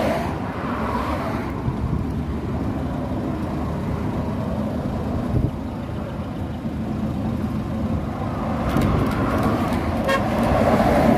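Highway traffic going by: a car's tyre noise sweeps past at the start, then a MAN TGS 26.360 tanker truck approaches, its engine and tyre noise rising over the last couple of seconds. A short horn toot sounds about ten seconds in.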